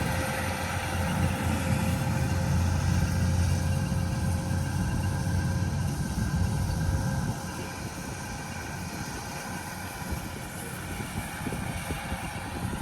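An engine running steadily with a low hum that drops away about seven seconds in.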